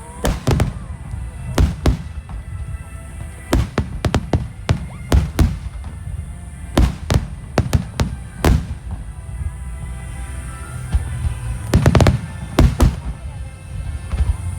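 Aerial firework shells bursting one after another in sharp booms, with a dense volley of bursts about twelve seconds in, over music playing in the background.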